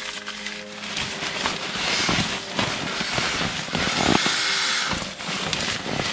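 Rustling and crinkling of a nylon pump sack as it is squeezed and pressed down by hand to push air into a sleeping pad, in uneven surges.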